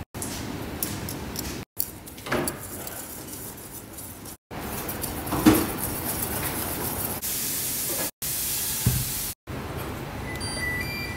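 Spatula and whisk stirring and scraping thick batter in a stainless steel bowl, in short clips cut off abruptly. Near the end, an induction cooktop's control panel gives short beeps as its buttons are pressed.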